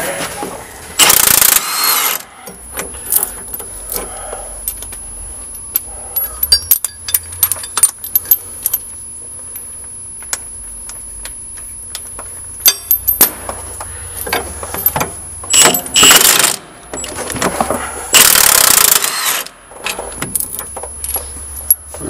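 Cordless impact wrench hammering in short bursts: once about a second in and twice near the end, with the longest burst lasting over a second. Between the bursts come scattered clicks and clinks of sockets and metal tools.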